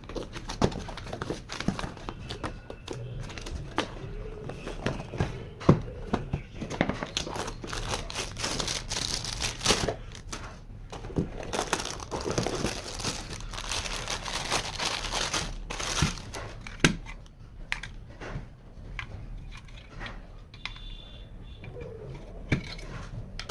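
Packaging being unwrapped and opened by hand: plastic and cardboard crinkling and tearing, with scattered sharp clicks and knocks as pieces are handled.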